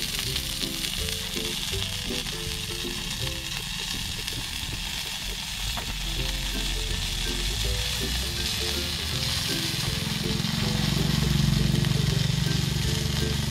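Whole fish wrapped in banana leaf grilling over a fire, sizzling and crackling steadily as its fat drips onto the heat. It gets louder in the last few seconds.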